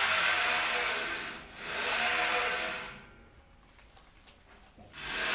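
Gantry of a homemade CNC plasma table pushed by hand along its rails: a steady rolling noise in two strokes of about a second and a half each, stopping about three seconds in.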